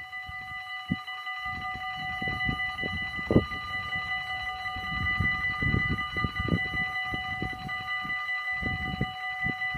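Dutch AHOB level-crossing bells ringing without a break, a steady metallic ringing, while the barriers come down. Low irregular rumbles lie underneath, with one sharp thump about three seconds in.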